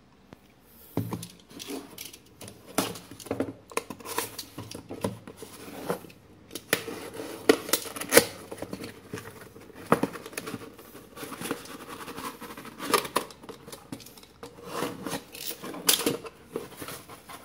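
Cardboard parcel box being opened by hand: irregular crackles, scrapes and sharp snaps of cardboard and packing tape as the flaps are pried and torn apart, starting about a second in.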